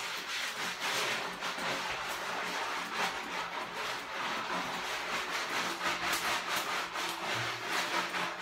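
Soapy mesh bath puff scrubbed over wet skin: steady rough rubbing in quick, irregular strokes, with a faint low hum underneath.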